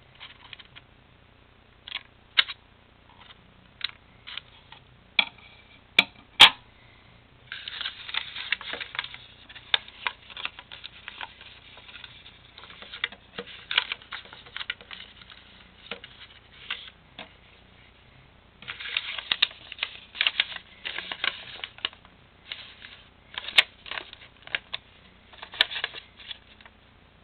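Scissors snipping paper with a few separate crisp cuts, and a sharp click about six seconds in. Then long spells of paper rustling and crinkling as a folded paper airplane is creased and shaped by hand.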